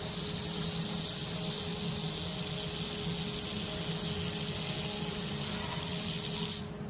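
Handheld air-cooled laser welder firing through a weld pass: a steady high hiss that starts at once and cuts off sharply near the end, over a low steady hum.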